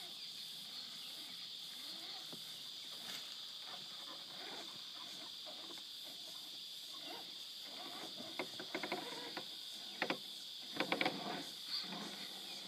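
Radio-controlled SCX10 rock crawler with a 55-turn brushed electric motor, its motor and gears whining in short rises and falls as it creeps over boulders. Sharp clicks and knocks come from the tyres and chassis on the rock in the last few seconds. A steady high drone of insects sounds throughout.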